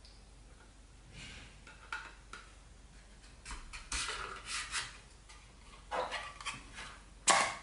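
Clear plastic SSD enclosure being handled and pressed together around a Samsung EVO SSD: scattered light plastic clicks, rattles and scrapes, with the loudest, sharpest click near the end.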